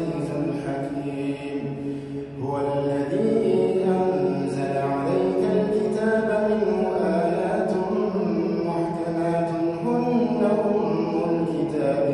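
A man reciting the Quran in a melodic, chanted style: one voice holding long, ornamented notes, with a short pause for breath about two seconds in.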